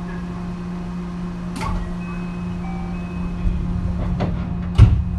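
A JR West 223 series 3000-subseries electric train standing at a platform, giving a steady low hum. Several sharp knocks and clunks come over it, the loudest just before the end.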